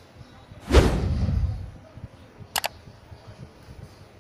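Edited-in subscribe-button sound effects: a loud whoosh sweeping down from high to low about 0.7 s in, then a quick double mouse click about 2.6 s in.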